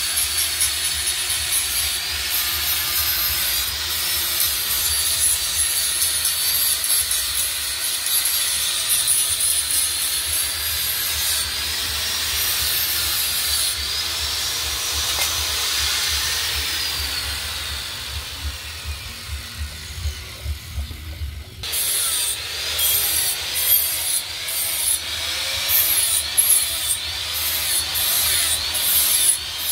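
Electric angle grinder grinding and sharpening the edges of steel knife blades. It makes a continuous high whine that dips and recovers in pitch as the disc is pressed onto the steel and eased off. About 22 seconds in the sound changes abruptly, and the grinding goes on in short, repeated passes.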